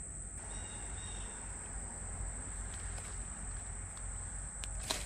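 Steady high-pitched insect chorus, like crickets, over a low outdoor rumble, with a couple of sharp clicks near the end.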